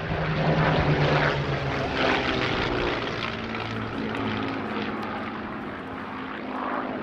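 Rolls-Royce Merlin V12 of a WW2 fighter flying past under power, its engine note dropping in pitch as it goes by, loudest about a second in. A second engine note rises briefly near the middle.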